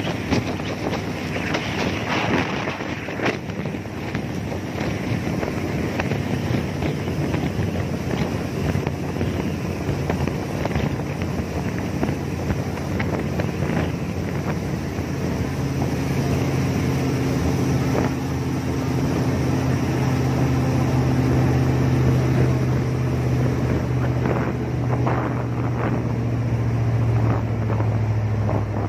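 Jet boat engine running with a steady low drone under heavy wind noise on the microphone; the engine hum grows stronger from about halfway through.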